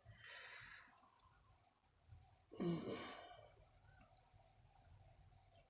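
Mostly quiet, with a breath at the start and a short sigh about two and a half seconds in.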